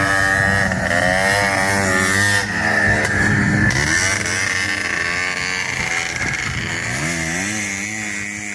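Honda Odyssey buggy engine running and revving, its pitch rising and falling again and again, and slowly fading toward the end.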